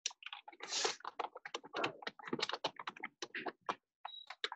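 Typing on a computer keyboard: quick, irregular keystrokes, with a brief high beep near the end.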